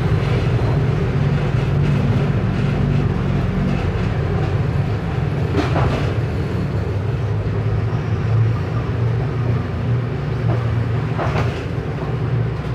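Mercedes-Benz OF 1519 bus's front-mounted diesel engine running steadily, its hum dropping in pitch about four seconds in, with a few brief rattles.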